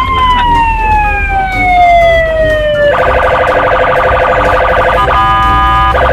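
Police car siren: a wail that rises quickly, then falls slowly for about three seconds, then switches to a rapid warble.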